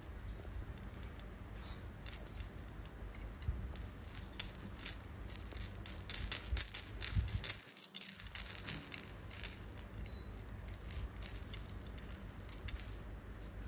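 Plastic baby rattle being shaken and mouthed, the beads inside clattering in quick irregular bursts that start about four seconds in, are busiest in the middle and die away near the end.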